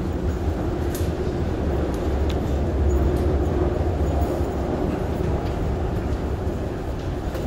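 Steady low rumble of Paris Métro station machinery or trains carrying through the tiled corridors, with a faint hum above it and a few scattered clicks of footsteps.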